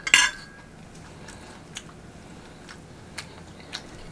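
Close-miked mouth sounds of chewing rotisserie chicken: a short, louder wet smack just after the start, then scattered soft clicks and smacks every half second or so.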